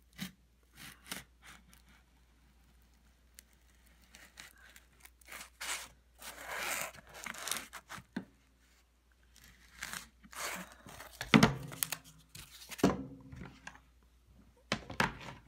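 Scissors cutting through a closed-cell foam pool noodle on a plastic cutting board: a run of irregular crunching, tearing snips. Two heavier thumps come about two-thirds of the way in.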